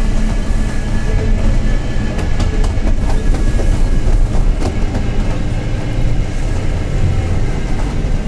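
Mercedes-Benz OF-1721 BlueTec 5 city bus running with a steady low diesel drone, a faint steady whine on top, and some clicks and rattles in the middle. The growl comes from a worn bearing ("rolamento roncando").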